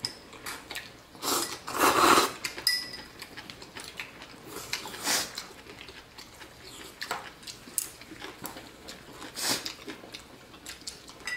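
Chopsticks and utensils clinking against ceramic bowls and a stainless steel pot during a meal: scattered light clicks and a few louder noisy bursts, the loudest about two seconds in.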